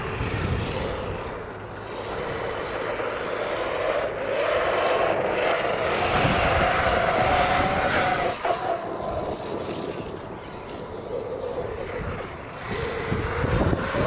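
ARRMA Outcast 8S, a large brushless electric RC stunt truck, driving on sand, its motor whine rising and falling in pitch with the throttle over a rough low rumble.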